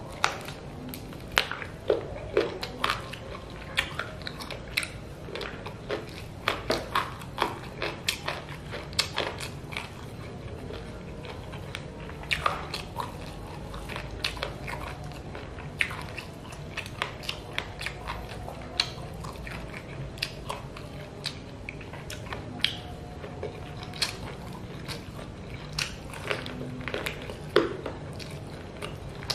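Close-up mouth sounds of chicken feet in red chili sauce being bitten and chewed by hand, with many sharp clicks and crunches at an irregular pace throughout, over a low steady hum.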